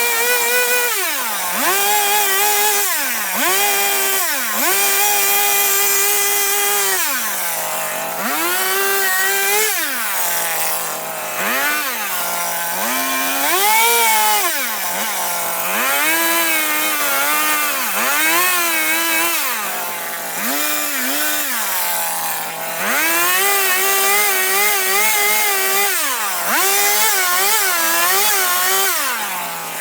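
Two-stroke chainsaw cutting into wood while carving, the throttle opened and released over and over. The engine climbs from idle to a high, steady whine for a second or two at a time, sometimes several seconds, then drops back to idle between cuts.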